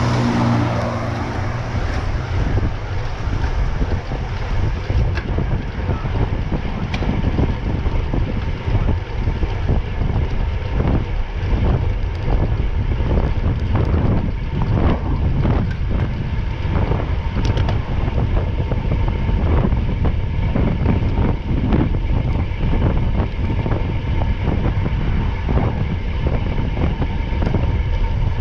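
Steady loud rumble of a vehicle under way, with wind buffeting the microphone.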